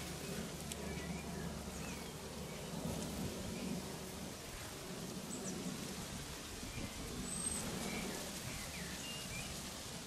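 Garden ambience: a steady background hiss with scattered faint, short chirps and calls of small songbirds.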